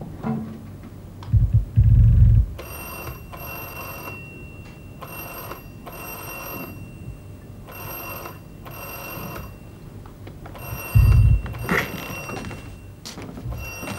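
Telephone ringing in repeated double rings, a pair about every two and a half seconds, starting a couple of seconds in. Two heavy low thuds, about a second and a half in and about eleven seconds in, are the loudest sounds.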